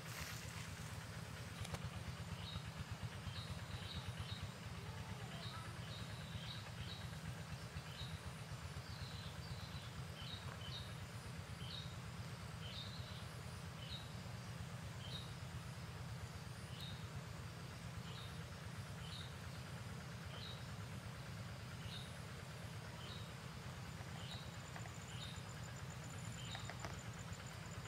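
A bird calls with short, repeated chirps, about one or two a second, over a steady low rumble of background noise. A faint high-pitched trill joins near the end.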